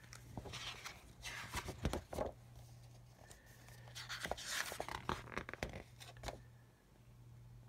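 Pages of a paper instruction booklet being opened and leafed through: several short papery rustles and flaps.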